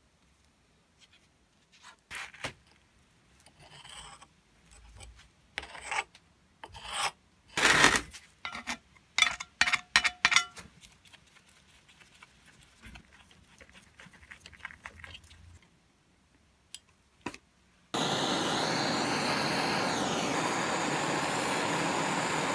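A small hand wire brush scrubbing rust from a cast-iron plane body in short bursts of scraping strokes, followed by quieter handling of the plane's parts. About three-quarters of the way in, a gas blowtorch starts and its flame hisses steadily as it heats a rusty screw in the plane's bed.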